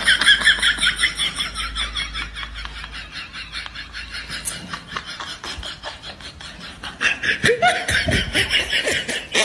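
A person laughing in quick, breathy snickers. The laughter fades through the middle and picks up again about seven seconds in.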